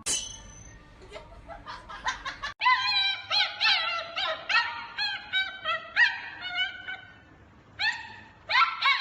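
A fast series of short, high-pitched animal cries, each rising and falling in pitch. They start about three seconds in, fade out, then resume near the end.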